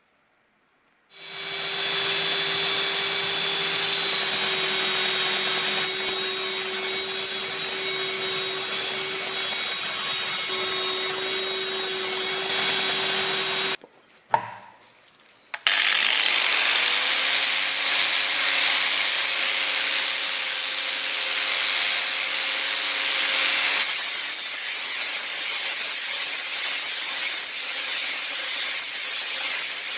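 Electric power tool running steadily under load as it works the hammer, with a steady motor hum under a rough rubbing noise. It starts about a second in, stops briefly about halfway through, then spins back up and runs on.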